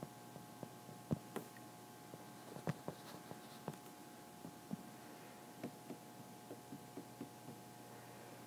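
Faint, irregular taps and ticks of a stylus writing on a tablet screen, over a low steady electrical hum.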